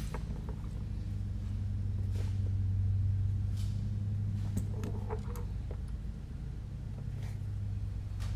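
Light clicks and rustles from a carbon-fibre drone frame and its wiring being handled and fitted together, over a steady low hum.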